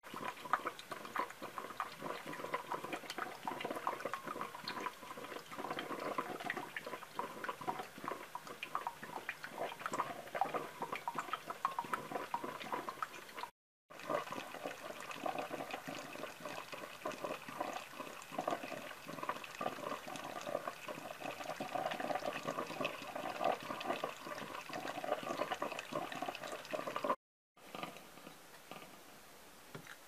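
KitchenAid Personal Coffee Maker brewing: hot water gurgles and crackles steadily through the filter. The sound breaks off briefly twice and is much quieter for the last couple of seconds.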